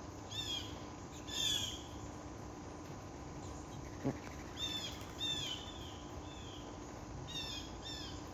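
A songbird singing short phrases of clear, down-slurred whistled notes, repeated in small groups, with a single faint click about four seconds in.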